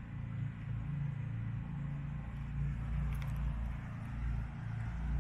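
McLaren sports car's engine idling: a steady low rumble that swells and eases slightly.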